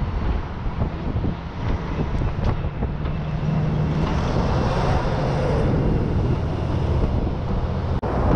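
Heavy truck driving at road speed: a low engine drone and road rumble under steady wind buffeting the roof-mounted microphone.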